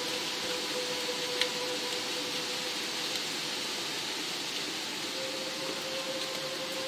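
Steady rain hiss with a few separate louder drops, under one held low note of ambient music that shifts slightly higher about five seconds in.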